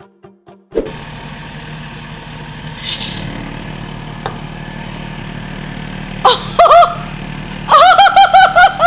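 Cotton candy machine motor running with a steady hum, spinning melted cough drops into floss, with a brief hiss about three seconds in. From about six seconds, a person's loud, high, wavering squeals come in short bursts over the hum.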